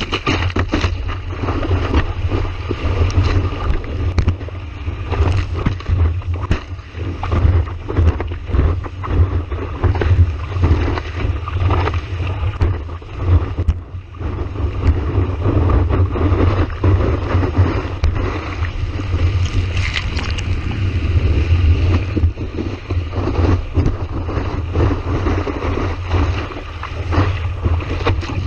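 Strong wind buffeting the microphone: a constant low rumble with irregular gusty crackle, over the wash of surf.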